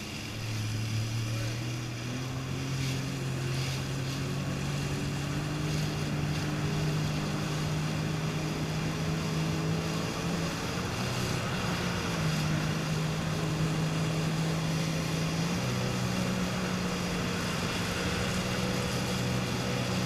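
Jet ski engine running under way at speed, a steady drone whose pitch steps up about a second in and shifts a little later as the throttle changes, over the rush of water and spray.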